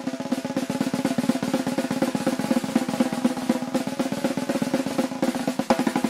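Tama drum kit played live in fast rolls on the snare and toms, with cymbal hits near the end.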